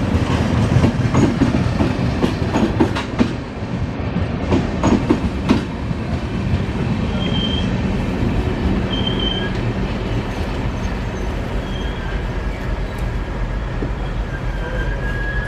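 Train coaches rolling through the station, the wheels clattering over rail joints for about the first six seconds, then a steadier low rumble with faint, thin brake squeals as the train slows for its halt.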